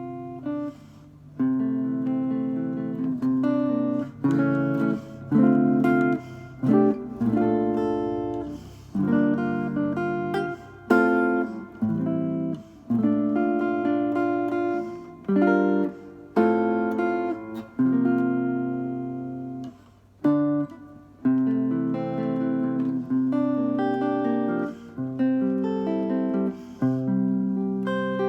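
Solo guitar playing a slow chord-melody arrangement with a pick. Chords ring out and decay, with a few brief pauses between phrases.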